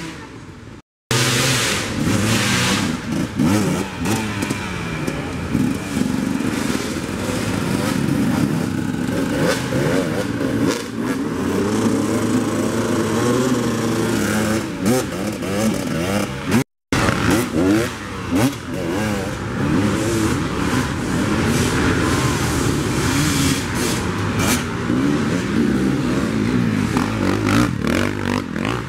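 Dirt bike engines revving and bogging on a steep dirt hill climb, the pitch repeatedly rising and falling. The sound cuts out completely twice, briefly: about a second in and again past the halfway point.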